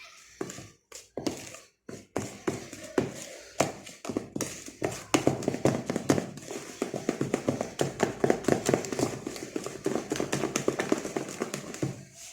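Cake batter being beaten by hand in a bowl, the utensil knocking against the bowl's side: a few scattered knocks at first, then from about five seconds in, fast, steady clicking.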